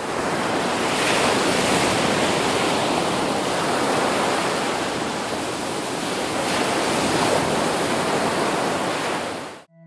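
Steady rushing noise of sea waves washing in along the shore, starting and stopping abruptly.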